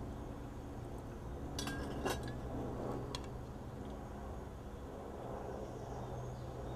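A few light clinks and knocks of stemmed plastic wine glasses being handled and drunk from, mostly in the first three seconds, over a low steady hum.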